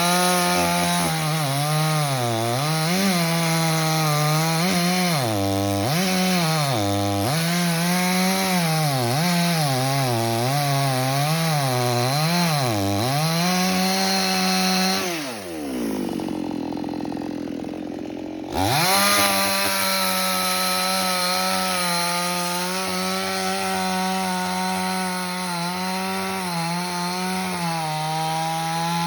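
Two-stroke chainsaw cutting jackfruit wood: the engine speed dips and recovers over and over under the load of the cut, winds down to idle about 15 seconds in, then is throttled back up about three seconds later and runs steadily at high speed.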